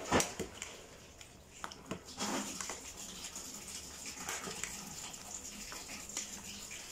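A ladle stirring and scooping broth in a stainless steel pot, with one sharp knock against the pot just after the start and a few lighter knocks and sloshes after it.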